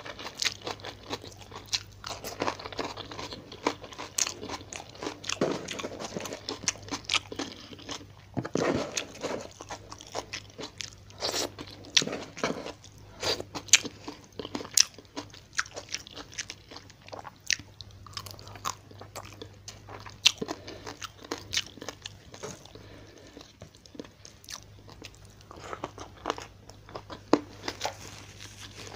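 Close-miked chewing and crunching of a meal of fried tilapia, rice and petai beans, with many sharp crunches and wet mouth clicks, over a faint steady low hum.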